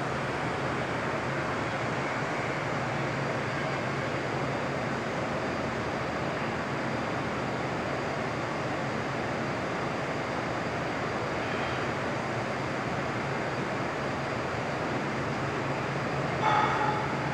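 Steady mechanical drone and hiss from a loaded self-propelled modular transporter's diesel power pack as the multi-axle trailer moves slowly. A pitched tone begins about a second before the end.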